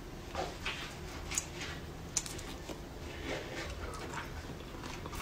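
Faint, scattered clicks and crackles of a cooked crayfish's shell being peeled and handled by hand.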